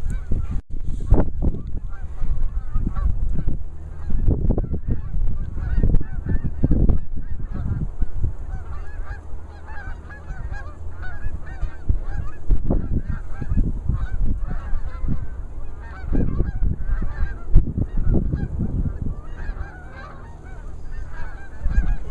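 A flock of geese honking continually, many overlapping calls, with loud irregular low rumbles underneath.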